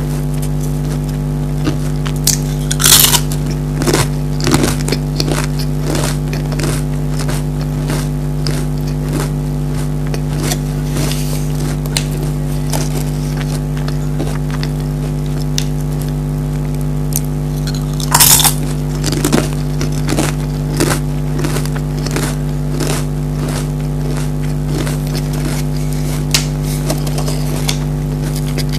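Pringles potato crisps being bitten and chewed close to the microphone: a run of short crisp crunches, with louder bites about 3 and 18 seconds in, over a steady low electrical hum.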